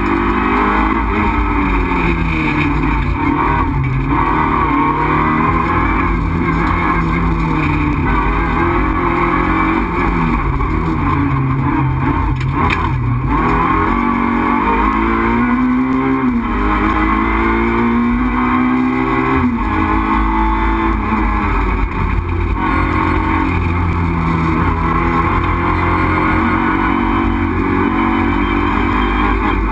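Renault Clio RS Group A rally car's 2.0-litre four-cylinder engine heard from inside the cabin, driven hard. The revs climb and fall again and again as the driver shifts gears and brakes for corners, with a deep dip and quick recovery about twelve to thirteen seconds in.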